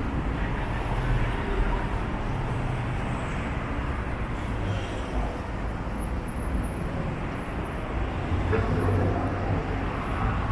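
Kawasaki 1400GTR's inline-four engine idling steadily through an Akrapovic slip-on muffler.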